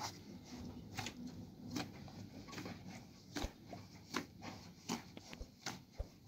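Dough being kneaded by hand in a large steel bowl: soft, squelchy pushes and slaps of the dough against the metal, coming in a steady rhythm of about one stroke every 0.8 seconds.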